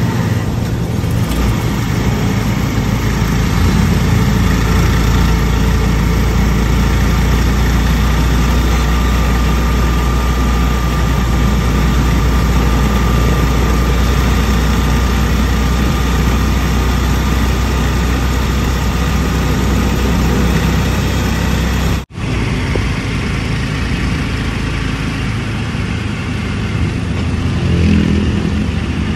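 Motor tricycle engine running steadily while riding, with a strong low rumble and road and wind noise, heard from the passenger seat. About two-thirds of the way through the sound breaks off for an instant and then goes on, a little thinner.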